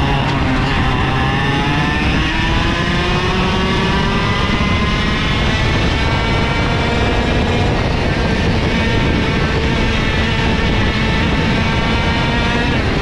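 IAME KA100 100cc two-stroke kart engine at full throttle, pulling up from low revs with its pitch climbing steadily for about seven seconds, then holding high and nearly steady.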